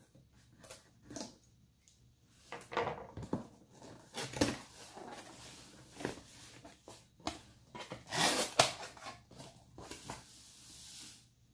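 A cardboard shipping box being opened by hand: tape cut and flaps pulled apart, with irregular scraping, rustling and knocks of cardboard, busiest near the end.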